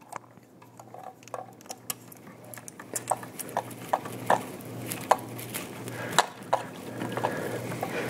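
Irregular light clicks, taps and scrapes of stiff electrical wires being handled and a plastic wire nut being twisted on by hand, over a faint steady low hum.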